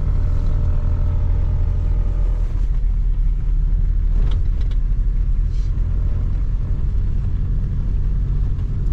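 Toyota Hilux pickup driving along a dirt track, heard from inside the cabin: a steady low engine and road rumble, with a couple of faint clicks about halfway through.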